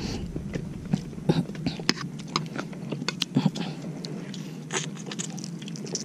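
Eating sounds: close chewing, with irregular small clicks and scrapes of a metal spoon against a plate of rice.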